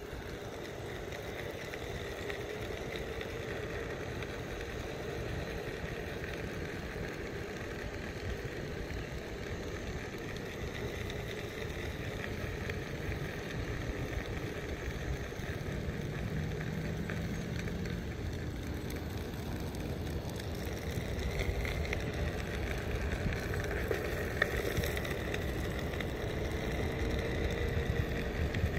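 Onewheel electric skateboard rolling on asphalt: a faint hub-motor whine that slowly rises and falls with speed over a steady low rumble of wind and tyre noise.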